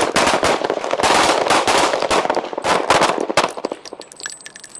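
Semi-automatic pistols firing rapidly on an outdoor range, several shooters' shots overlapping, thinning out to scattered shots about three and a half seconds in.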